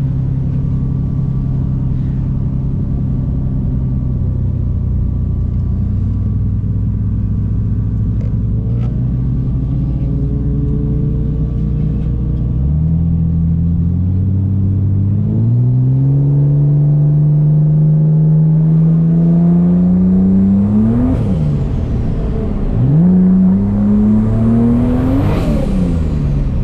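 Turbocharged Ford Barra inline-six in a Holden VL Commodore, heard from inside the car. It runs steady and low for about twelve seconds, then accelerates hard with the pitch climbing in steps. Near the end it drops sharply twice and climbs again.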